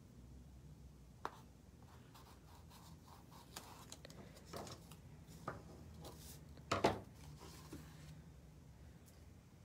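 Masking tape being handled on a canvas: faint scattered rustles, scrapes and taps as a strip is pulled, torn and pressed down, the loudest a sharp crackle about seven seconds in.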